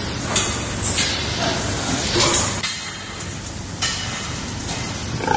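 Pig barn at feeding time: irregular clinks and knocks of metal crates and steel feed troughs over a steady hum.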